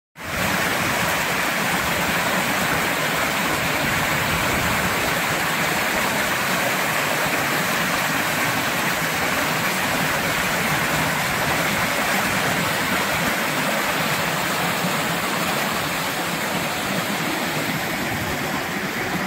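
Creek water rushing over rock ledges in small cascades, a steady, unbroken rush.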